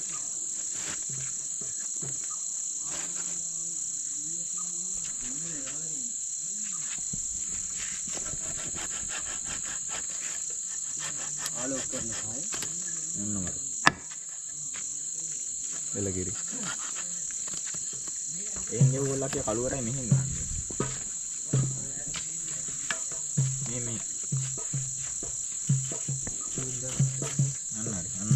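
Crickets and other night insects chirring steadily. From about two-thirds of the way in, a knife chops fish on a wooden board in regular knocks, under a sharp click a little before halfway.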